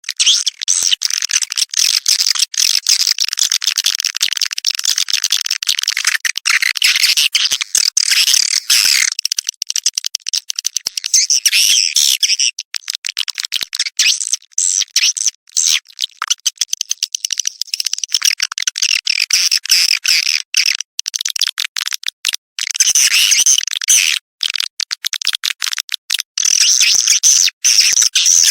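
A recording of swiftlets giving courtship ('birahi') calls: a dense run of rapid high chirps and clicks, thinning briefly about halfway through. It is played as a lure to draw swiftlets to a nesting house.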